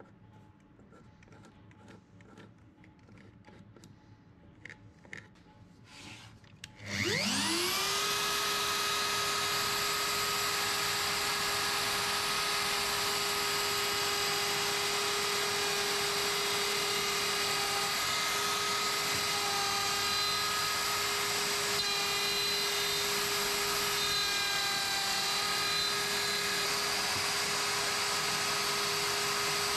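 A few faint taps, then about seven seconds in a DeWalt plunge router starts, its motor winding up quickly to full speed, and runs steadily as it routs a recess into an ash slab.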